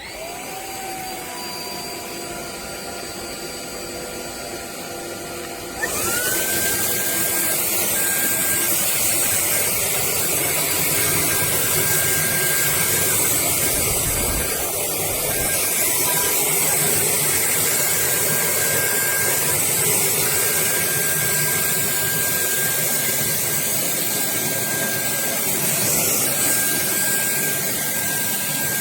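Dreame Z20 cordless stick vacuum's motor spinning up and running with a steady whine. About six seconds in it steps up to a louder, higher-pitched power setting over a strong rush of suction air, then runs steadily.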